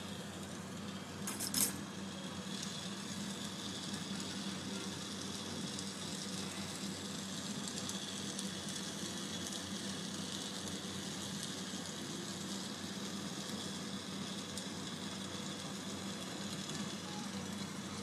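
Glassblowing torch flame hissing steadily while the glass is worked in the fire. A brief click comes about one and a half seconds in.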